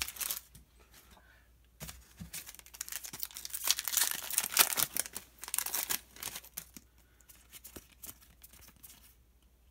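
A foil Pokémon trading card booster pack being torn open and crinkled, loudest about four to five seconds in, then the cards handled with light clicks.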